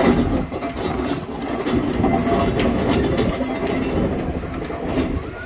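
Steam showman's engine running close by as it moves along a road: a steady chugging with a rhythmic mechanical clatter and sharp clanks from its motion and gearing.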